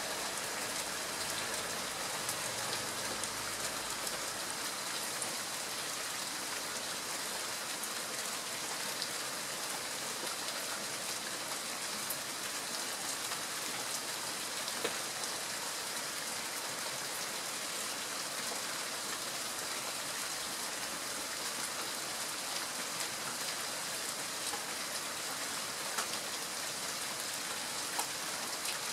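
Steady rain falling: an even hiss with a few scattered, sharper single drop ticks.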